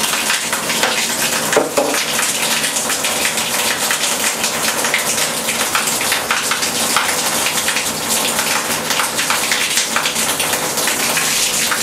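Water spraying steadily from an open shower arm with the shower head removed, the water still turned on.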